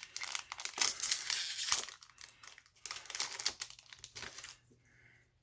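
Foil trading-card booster pack wrapper being torn open and crinkled. It crackles heavily for about two seconds, then gives a few shorter crinkles and dies away near the end.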